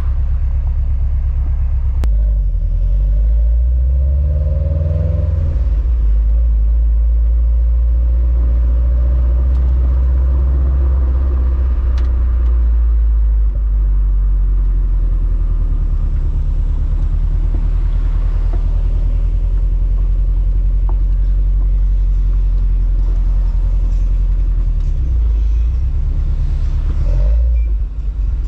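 Stock exhaust of a 2021 Subaru WRX STI with a turbocharged 2.5-litre boxer flat-four, idling with a steady, deep rumble from the quad tips.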